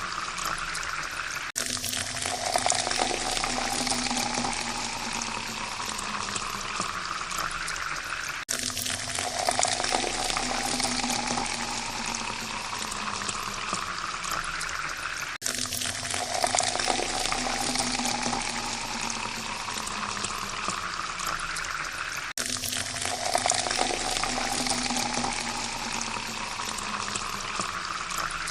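Water pouring steadily into a glass, with the splashing ringing higher in pitch as the glass fills. The pour is repeated in about seven-second takes, each cut off sharply and starting again low, four times over.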